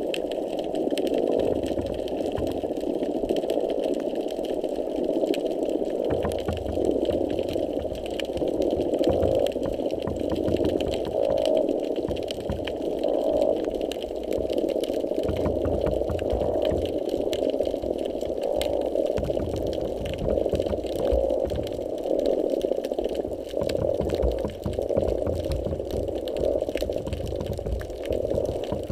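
Underwater noise picked up by a hydrophone: a repetitive pulsing hum that keeps going without a break, with irregular low thumps beneath it, the kind of repetitive noise heard just below the surface near the pier.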